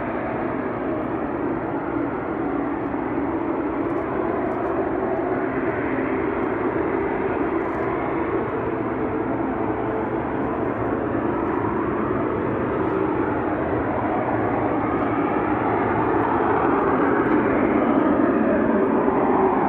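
A steady droning roar from the sky, like a plane coming towards the listener, slowly growing louder near the end; its source is unidentified.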